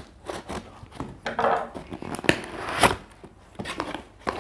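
A large parcel's packaging being torn open by hand: irregular rips, clicks and crinkling, with two louder tears a little after two seconds and near three seconds in.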